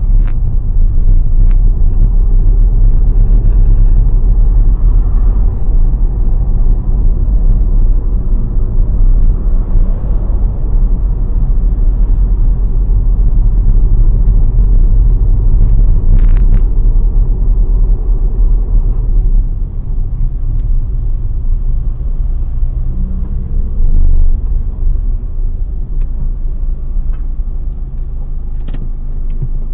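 Steady low rumble of a car driving on the road, heard from inside its cabin; it eases somewhat about twenty seconds in.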